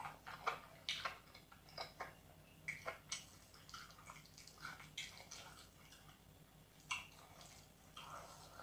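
Close-miked eating sounds: wet mouth smacks and clicks from chewing, and squelches of fingers mixing rice and curry, coming as short irregular bursts.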